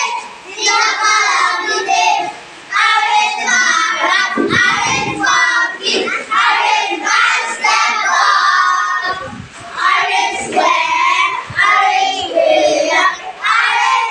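Young children singing a song together, phrase after phrase with brief pauses between lines.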